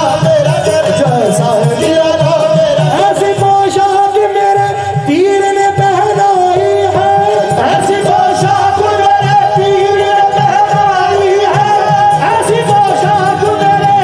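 Qawwali music: a harmonium holding steady notes over tabla drumming, with singing voices.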